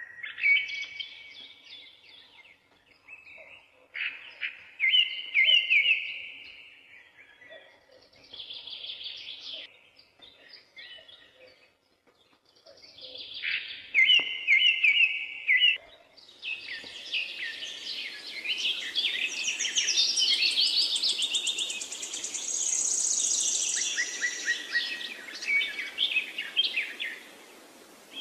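Jungle babblers calling: short bouts of rapid, repeated chattering notes with pauses between them, building about halfway through into a dense, continuous chorus of overlapping calls.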